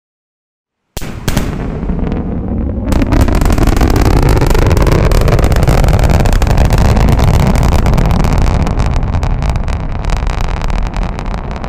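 Super Heavy booster's Raptor rocket engines firing in the landing burn: a loud, crackling roar that starts about a second in, swells to full strength around three seconds in and eases slightly near the end.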